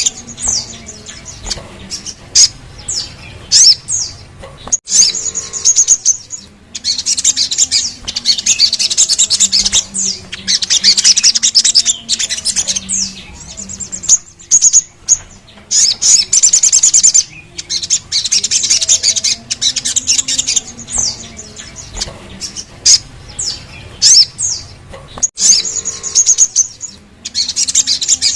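Crimson sunbird (sogon) singing: long, very high, rapid rolling trills lasting a few seconds each, alternating with short bursts of sharp, quickly falling chirps.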